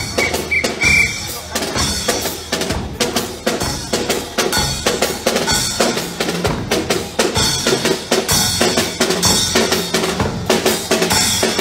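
Music with drums and percussion playing a steady, fast beat.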